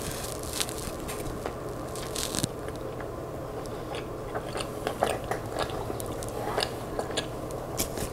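Close-miked chewing of a mouthful of food, with scattered small crunches and wet mouth clicks.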